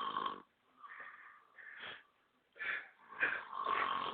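A man snoring heavily in his sleep, in long rasping breaths. A loud snore ends shortly after the start, softer breaths follow, and another loud snore starts about three seconds in.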